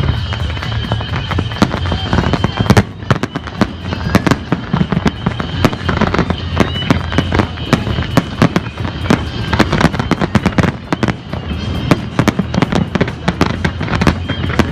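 Fireworks display with loud, rapid, irregular bangs and crackles, several a second, with music and voices faintly underneath.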